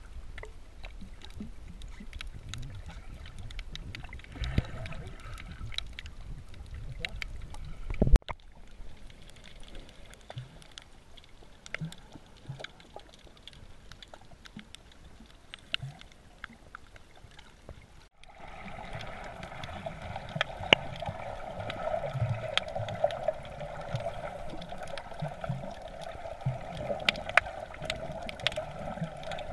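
Underwater sound picked up by a snorkeller's camera: a dense crackle of small clicks over a low water rumble. The sound cuts out briefly twice, and about two-thirds of the way through a steady hum joins in.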